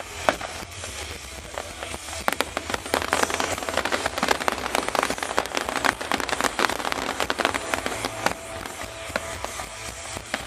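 Fireworks crackling: a dense, rapid run of small pops and crackles from many bursting stars, thickest in the middle and thinning toward the end.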